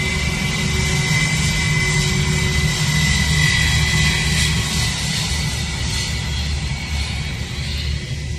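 Airbus A320's jet engines running as the airliner rolls past: a steady low rumble under a high fan whine, loudest about three to four seconds in and fading as it moves away.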